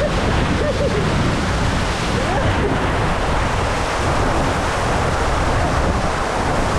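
Waterfall pouring down into its pool: a loud, steady, unbroken rush of water.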